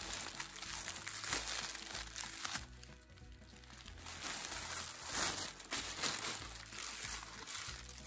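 Tissue paper crinkling and rustling as it is handled and pulled open, in uneven bursts with a short lull about three seconds in.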